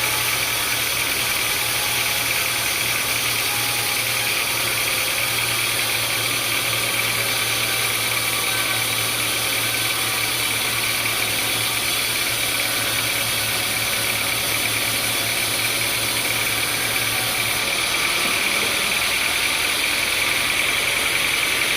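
Sawmill machinery running steadily: a continuous engine-like hum with a constant high whine over it, the low hum shifting about three quarters of the way through.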